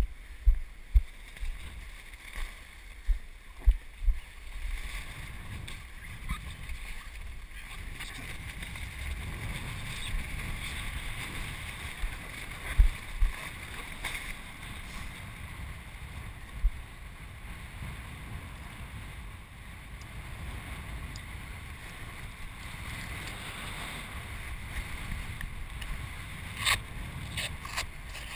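Wind buffeting the camera microphone: a run of low thumps over the first four seconds or so, then a steady low rumble and hiss. Bare feet splash through shallow water over sand, with a few sharp clicks near the end.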